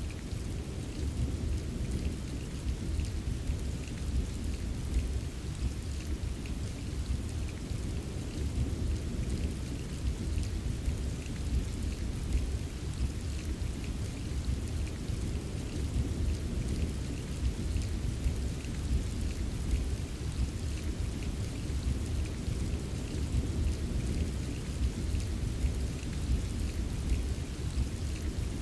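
Steady rain ambience: a continuous low rumble under an even wash of rain, with faint scattered patter of drops.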